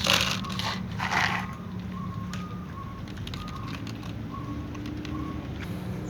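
A cat with a runny nose sneezing twice, two short bursts about a second apart, followed by scattered faint clicks.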